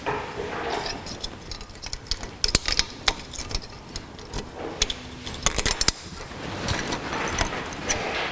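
Stainless steel brake pad hardware clips being pressed and snapped into a front brake caliper bracket: a scatter of small metal clicks and clinks.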